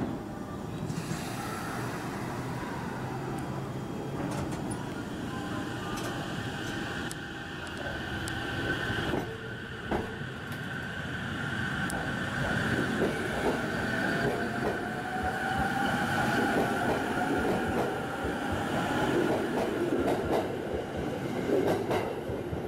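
Electric commuter train departing: it pulls out and accelerates past with a whine that rises in pitch, over the rumble and clatter of its wheels on the rails.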